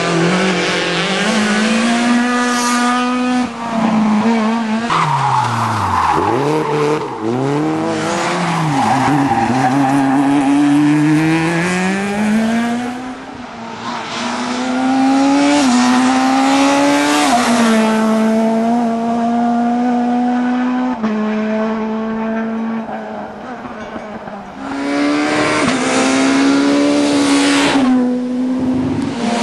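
Rally car engines running hard, one car after another. The revs climb, drop back in sudden steps as the driver changes gear, and fall away off the throttle into the bends before picking up again.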